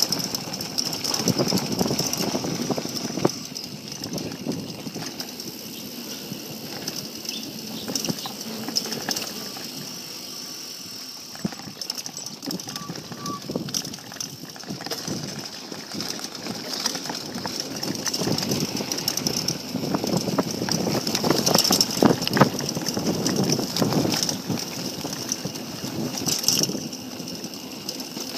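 Mountain bike riding over a rough dirt and gravel trail: tyres crunching and the bike rattling and knocking over bumps, louder and busier for a stretch past the middle.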